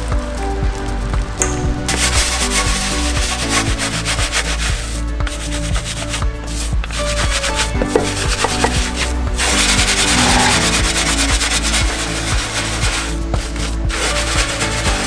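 Background music with a steady bass line, over a rough scrubbing noise that stops briefly several times: typical of a brush or wash mitt being worked over a car's paint.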